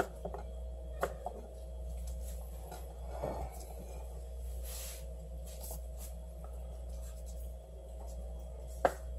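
A long knife cutting and scraping raw sea bass on a wooden cutting board, with a few sharp taps of the blade on the board. A steady low hum runs underneath.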